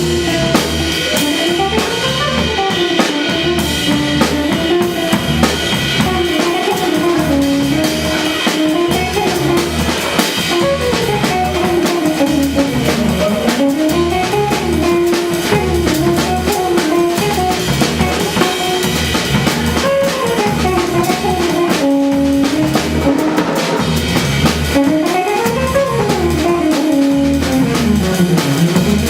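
Jazz trio playing: a drum kit keeps a steady beat under guitar, with a melodic line that climbs and falls.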